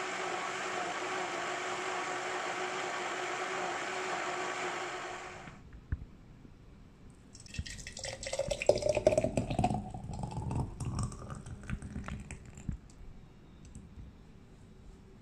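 Countertop blender running steadily on mango lassi, cutting off about five seconds in. Then the thick drink is poured into a glass jar, splashing and gurgling with a pitch that rises as the jar fills.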